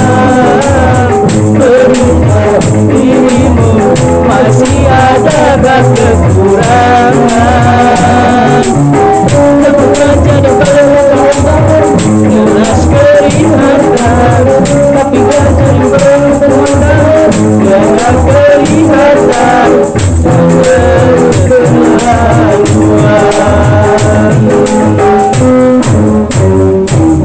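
A street busker singing a dangdut song over a steady, rhythmic instrumental accompaniment.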